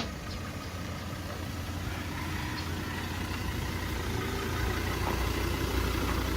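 A car engine running steadily, a low hum that grows slightly louder toward the end.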